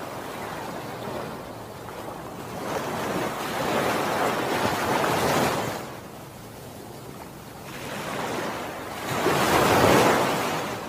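Sea waves washing onto the shore, swelling twice to louder breaks about five seconds apart.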